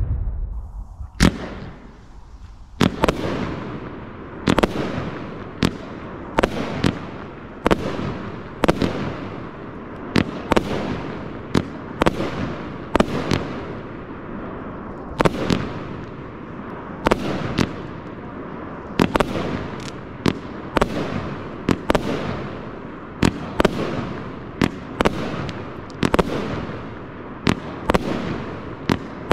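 Pyroworx Pearlescent 25-shot 30 mm firework cake firing. Sharp bangs come about once a second, each trailing off in echo. There is a single shot about a second in, and steady firing starts near three seconds.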